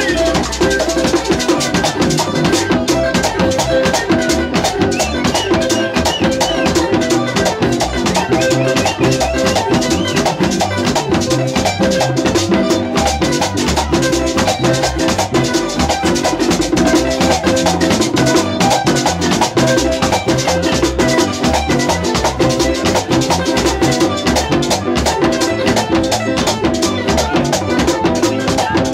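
Latin dance music in an instrumental stretch with no singing: drums and shakers keep a quick, steady beat under the melody instruments.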